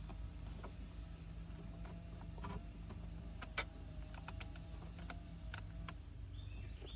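Faint scattered clicks and plastic rattles of wire-harness connectors being worked loose from a car's turn signal switch by pressing their locking tabs, over a steady low hum that stops near the end.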